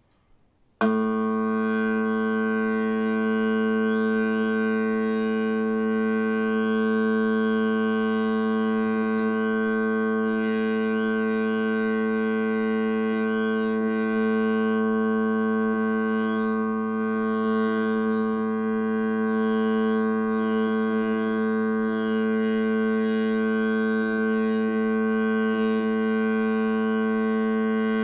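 Touch-controlled digital cube instrument sounding one steady, held note rich in overtones, starting about a second in; the pitch stays fixed while the upper overtones waver slightly.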